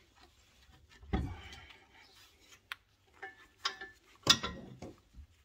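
Mercedes GLC rear brake caliper being worked loose and lifted off its pads and carrier by hand: metal scraping and clinking, with a louder clunk about four seconds in.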